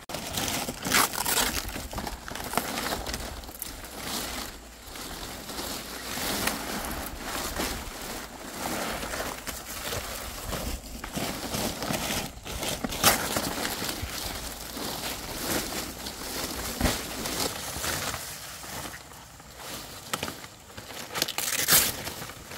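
Fan palm leaves rustling and crinkling as they are lifted, shuffled and gathered into bundles by hand, with a few sharper, louder crackles.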